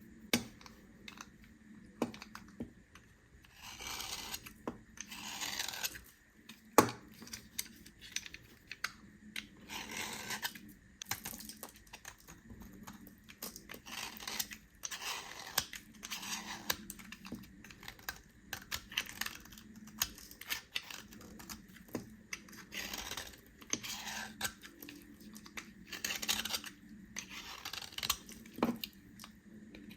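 A knife cutting through bars of soap: scratchy, crunching strokes about a second long, several times, between many small sharp clicks and taps of the blade. One click about seven seconds in is the loudest.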